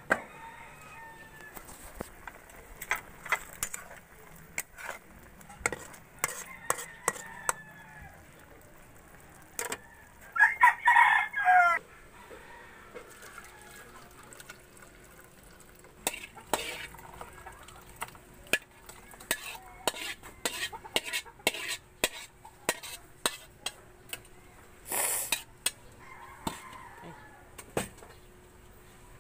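A rooster crows once, about ten seconds in, the loudest sound. Around it a metal spatula clinks and scrapes many times against a wok and pot as food is scooped out.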